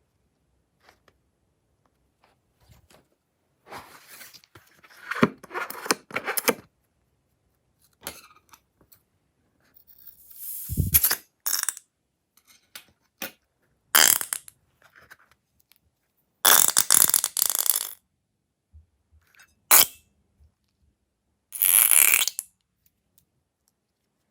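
Slime and craft materials being handled: short bursts of squelching and scraping in separate spells, with a sharp click near the end.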